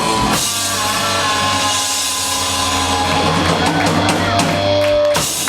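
Live rock trio of electric guitar, bass guitar and drum kit holding out a closing chord under a wash of cymbals, the bass note sustained beneath; the band stops just before the end.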